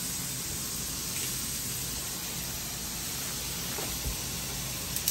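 Thinly sliced seasoned ribeye steaks sizzling steadily in a hot griddle pan as they brown, with a light click near the end.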